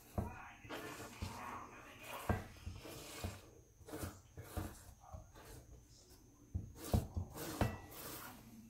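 Chopped greens being scraped off a cutting board into a cast-iron skillet: irregular knocks and scrapes of the board and a metal spoon against the pan.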